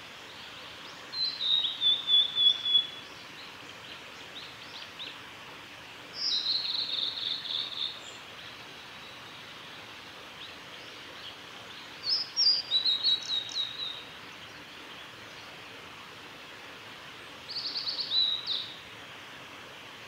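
Male blue-and-white flycatcher singing: four separate phrases about five seconds apart, each a quick run of high, clear notes that opens high and drops in pitch toward its end.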